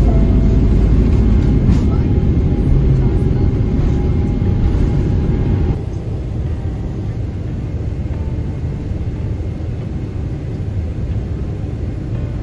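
Airliner cabin noise by a window seat: a steady, loud, low rumble of jet engines and air while the plane is on the ground. About six seconds in, it cuts to a somewhat quieter steady drone in flight.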